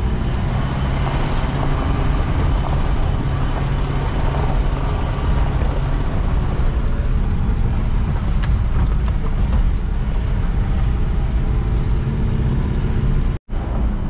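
Jeep engine running steadily under load, with the rumble of driving on a rough dirt road and a few light knocks. The sound cuts out for an instant near the end.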